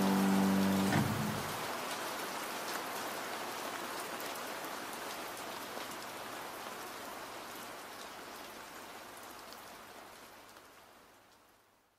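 A held musical chord stops about a second in, leaving steady rain that fades out gradually to silence near the end.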